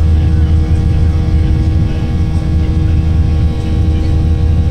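Steady cabin noise of a Boeing 737-800 climbing out after takeoff: the CFM56 jet engines' low rumble and airflow, with a couple of steady humming tones over it.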